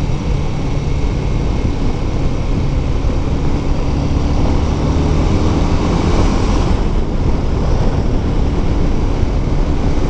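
Motorcycle engine running at road speed under the rush of wind over the microphone. The engine note rises slightly around the middle.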